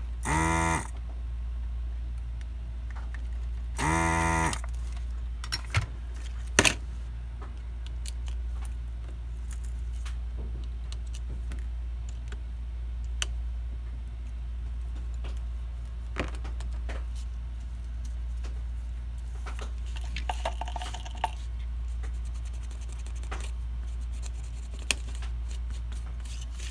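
Handheld desoldering gun's vacuum pump buzzing in two short bursts, at the start and about four seconds in, sucking solder from the board's joints. Then light clicks and taps of tools and parts on the bench over a steady low hum.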